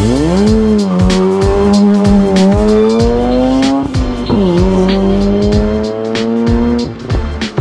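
Mazda RX-8's RENESIS twin-rotor Wankel engine revving sharply up and holding at high revs, its pitch creeping upward, then dropping briefly about four seconds in and climbing back before cutting off near the end. Music with a steady beat plays along with it.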